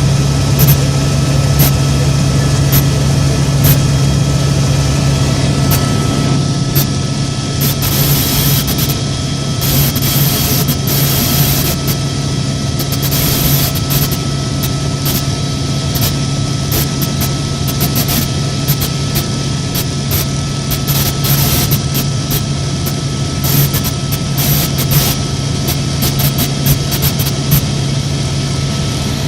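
Helicopter in flight: the steady, loud drone of its turbine engine and rotors, dominated by a constant low hum with fainter steady whines above it.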